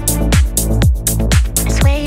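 Background electronic dance music with a steady four-on-the-floor kick drum, about two beats a second, under bright hi-hats and held synth chords.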